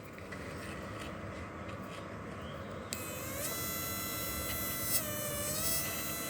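Electric fishing machine's high-voltage inverter running: a hiss, then about halfway through a buzzing whine with many overtones that shifts up and down in pitch as the load changes.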